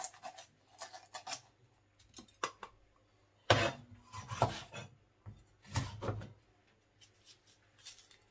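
Kitchen knife cutting a yellow bell pepper on a cutting board: scattered slicing knocks and scrapes, the loudest clusters about three and a half seconds in and again around six seconds.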